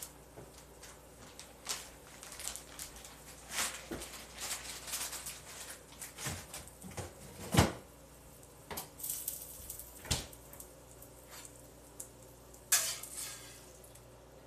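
Kitchen clatter of pots, pans and utensils being handled and set down: irregular clinks and knocks, the sharpest a little past halfway and another near the end.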